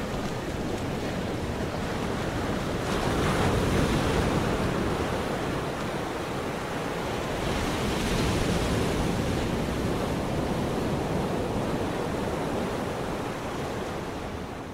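Sea surf washing steadily, rising in gentle swells a few seconds in and again about halfway, then starting to fade out at the very end.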